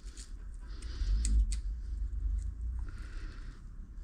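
Small tool and metal-part clicks from hands working on a bicycle: a few sharp ticks, over a low rumble of handling noise.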